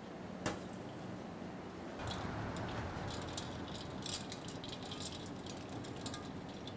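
Hand working a poached egg in a stainless steel bowl of ice water: faint sloshing with light rattling clicks from about two seconds in, after a single light tap about half a second in.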